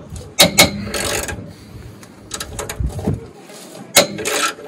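Spanner turning a rusted, seized tow-bar bolt on a Land Rover Defender 110: sharp metal clicks twice about half a second in and once near the end, with short scraping, rasping sounds between as the bolt slowly undoes.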